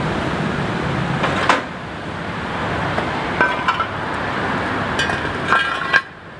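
Clanks and knocks of a wheel chock being lifted from a metal tool cart and wedged against a truck's front tyre, in three short groups, some with a brief ring, over steady outdoor background noise.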